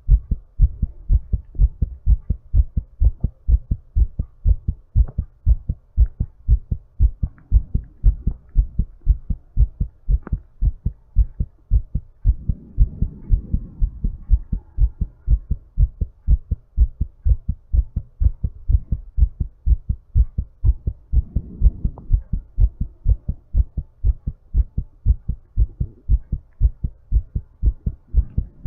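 A person's heartbeat picked up at the chest, beating fast and evenly as the heart recovers after exercise: a steady train of low, dull thumps.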